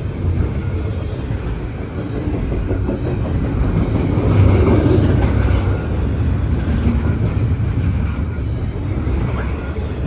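CN intermodal freight train rolling past, its steel wheels on the rails making a steady rumble that is a little louder about halfway through.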